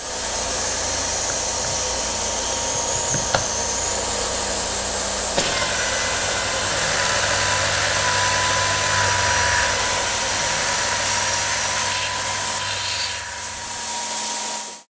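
Automated drilling unit running a 1/4-inch double margin drill through a carbon-fibre and 7075 aluminium stack at about 2,960 rpm, with a vacuum hose at the cutter: a loud, steady motor and cutting noise. There are light clicks about three and five seconds in, the sound shifts after the second one, and it cuts off suddenly near the end.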